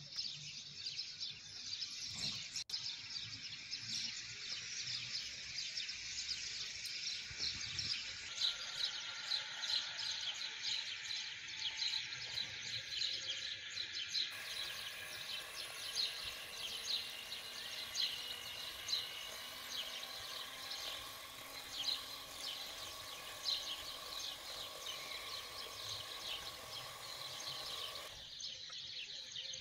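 Birds chirping continuously. About halfway through, an electric hand mixer starts running steadily under the birdsong, and it stops shortly before the end.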